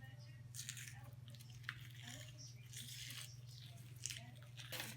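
Soft, irregular rustling and squishing handling noises, coming in short spells, over a steady low hum.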